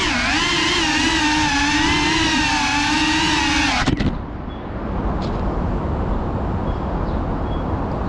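FPV quadcopter's motors whining, heard from its onboard camera, the pitch wavering up and down with the throttle. About four seconds in the drone lands with a clatter and the motors cut off suddenly, leaving only a steady outdoor background noise.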